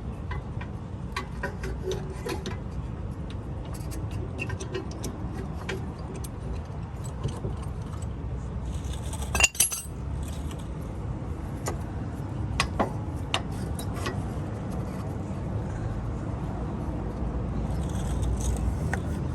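Scattered metallic clinks and rattles of brake pads, clips and hand tools being handled during a brake pad change, with one louder clatter about halfway through.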